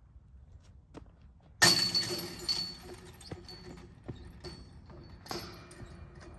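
Thrown disc golf disc striking the metal basket target: a sudden loud clang and jangle of chains about a second and a half in, ringing away over the next second with small clinks. A second, smaller jangle of the basket chains comes a little past five seconds.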